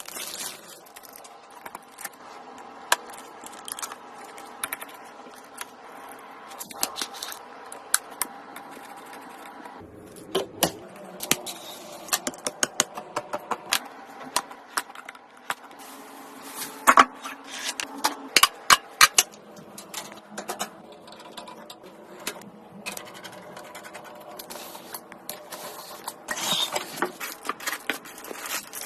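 Irregular clicks, taps and scrapes of small metal and plastic computer parts being handled and fitted together, over a faint steady hum. The clicks come thickest about two-thirds of the way through.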